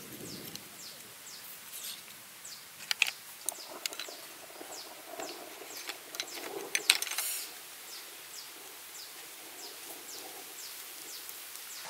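Snail shells clicking and knocking against each other and the metal tray as they are handled, with a few sharp clicks about three to four seconds in and a louder cluster near seven seconds. Behind it runs a steady series of short, high, falling chirps, about two a second.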